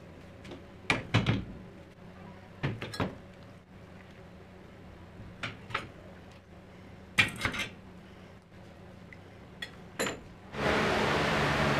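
Wet metal scooter parts, lifted out of a rust-removal bath, set down one after another on a plastic tray: about five pairs of short clinks and knocks, spread evenly. About a second before the end a loud steady rushing noise starts abruptly.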